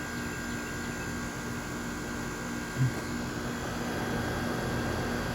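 Bryant 2-ton heat pump running in cooling mode: a steady fan whoosh over a low compressor hum. One brief low thump about three seconds in.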